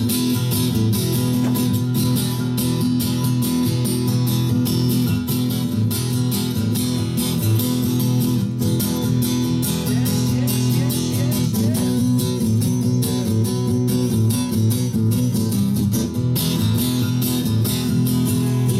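Live guitar strummed in a steady rhythm, an instrumental break in the song with no singing.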